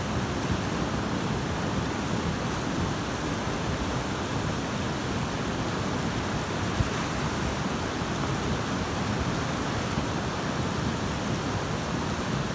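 A river in flood rushing past steadily, its high, muddy water churning.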